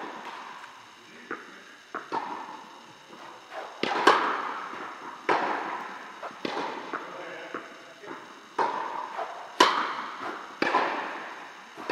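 Tennis serve practice in a large indoor tennis hall: sharp pops of racket strings on ball and softer ball bounces on the court, each ringing out in the hall's long echo. There are about ten hits, a second or so apart, with two much louder racket strikes.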